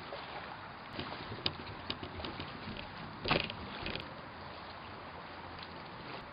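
Steady wind hiss with a few scattered light clicks and a short crackle a little over three seconds in.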